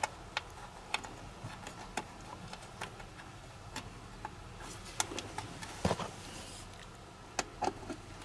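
Irregular small clicks and taps of cables, connectors and plastic parts being handled and pressed back into place around a battery shunt, with a louder knock about six seconds in and a few quick clicks near the end.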